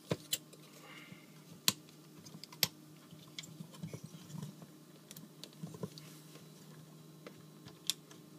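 Hard plastic parts of a transforming-robot action figure being handled and clicked into place: scattered sharp, irregular clicks, with soft rustling between them and a faint steady low hum underneath.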